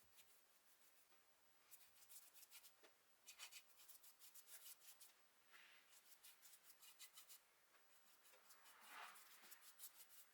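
Faint scratchy rubbing in several short bursts of rapid clicks, as of something being rubbed or scraped by hand.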